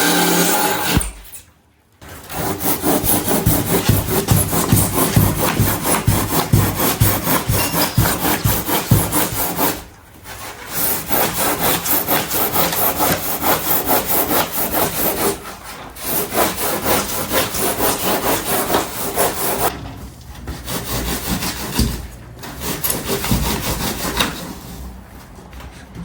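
Saw cutting by hand in quick back-and-forth strokes. The cutting comes in several runs broken by short pauses.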